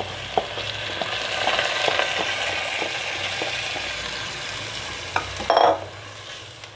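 Washed kalijira rice going into hot oil and ghee in a pot and sizzling, the hiss swelling about a second in and slowly easing off, with small clicks of a spoon against the pot. A louder clatter comes about five and a half seconds in.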